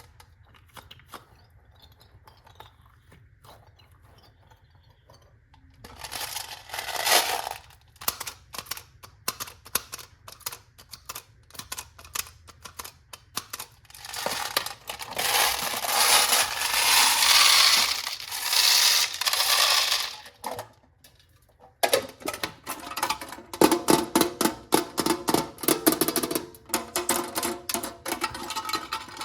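Small hard candies clattering into a plastic container in dense rattling runs, after a few seconds of only faint scattered clicks.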